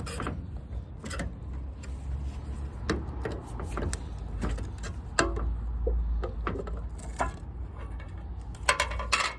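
Scattered light clicks and knocks of tools and containers being handled, over a low steady hum.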